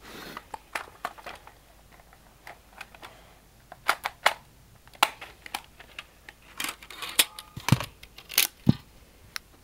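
Plastic clicks, snaps and scrapes as the top slide of a spring airsoft pistol is pried off by hand: a run of irregular sharp clicks and knocks, busiest in the second half.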